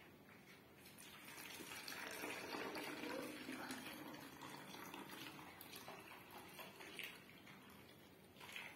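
Water poured from a steel jug into a plastic bottle: a faint, steady stream of filling that starts about a second in and runs until near the end.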